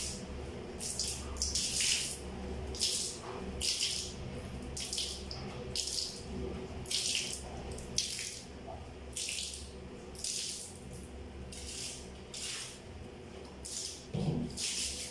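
Water splashed across a floor from a plastic dipper, again and again, about once a second, over a steady low hum.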